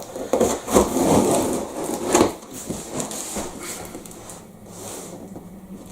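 Handling noise: rustling with a few sharp knocks, the loudest about two seconds in, quieter later on.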